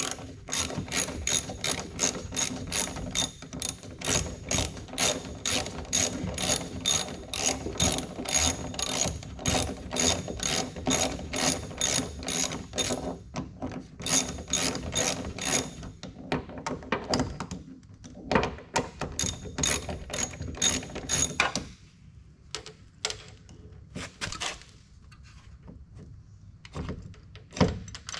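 Hand ratchet wrench clicking as it is swung back and forth to work the bolts of a car door hinge, about three to four clicks a second with a couple of short pauses. Near the end the steady clicking stops, leaving a few scattered clicks and knocks.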